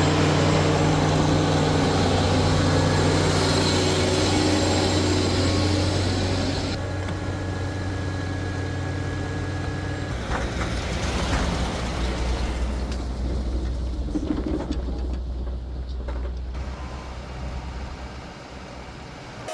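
Heavy vehicle engine running steadily. The sound changes abruptly about seven and ten seconds in, after which a lower rumble carries on, and it grows quieter near the end.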